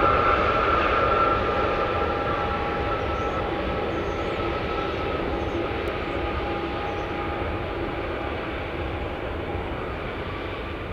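Boeing 787-9 airliner's jet engines running with a steady whine over a broad rushing noise as the plane rolls out on the runway after landing, the sound slowly fading as it moves away.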